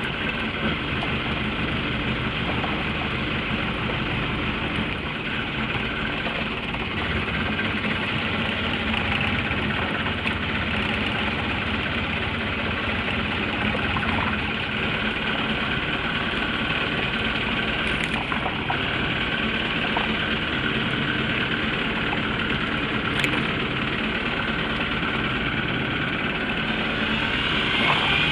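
Fishing boat's engine running steadily at idle, over a constant hiss of rain and sea.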